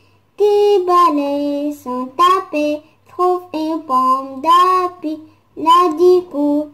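A woman singing a French children's song without accompaniment, in short melodic phrases of held notes with brief pauses between them.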